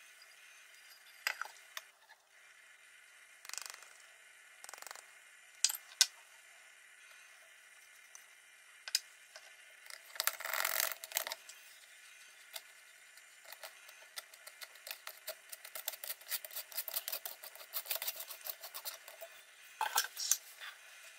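Kitchen handling sounds from sifting flour, cocoa powder and sugar through a plastic-rimmed wire-mesh sieve: scattered clinks and knocks of bowls and the sieve, a short rush of powder poured in about halfway, then several seconds of rapid light ticking as the sieve is shaken and tapped over the bowl, with a couple of louder knocks near the end.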